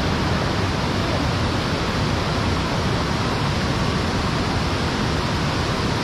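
River water rushing over the rock slides of a natural waterslide, a steady, even hiss.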